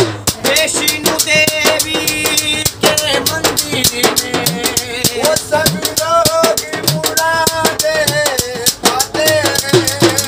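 A man singing a Hindu devotional bhajan, his voice bending and holding long notes, over a metal-rimmed frame drum struck by hand in a fast, steady beat.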